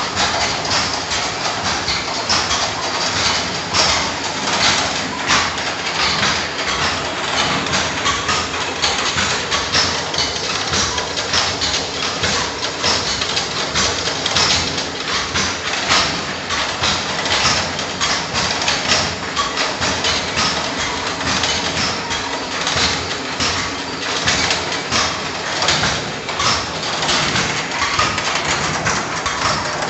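Traditional belt-driven pulverizer mill running and grinding turmeric to powder: a loud steady machine noise with a constant irregular clatter from the belts and grinding works.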